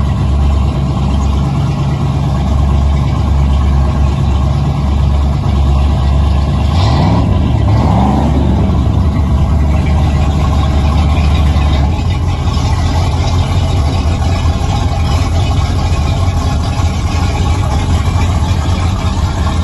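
Inboard engine of a classic mahogany runabout running steadily at idle, with a brief rise and fall in engine speed about seven seconds in.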